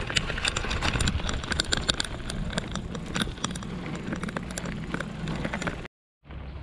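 Bicycle rolling over a rough gravel road, its tyres crunching on loose stones and the bike rattling, with many small clicks. The sound drops out for a moment near the end.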